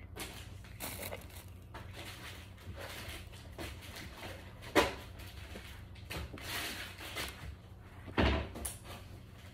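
Small handling noises with two knocks: a sharp one about five seconds in and a duller thump about eight seconds in.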